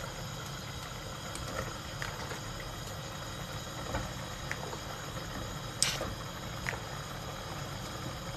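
A few light clicks and knocks of cooking utensils over a steady low hum, the sharpest knock about six seconds in.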